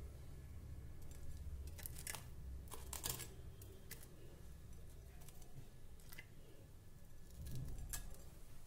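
Crisp vermicelli-coated fried bread rolls being set down one by one on a glass plate and lifted from a steel plate: a handful of light taps and scrapes.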